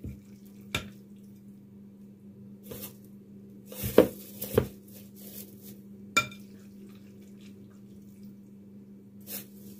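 A kitchen utensil clinking and knocking against a dish as chopped cooked meat is scooped into a bag, a handful of light, scattered clicks with the loudest pair about four seconds in. A steady low hum lies under it.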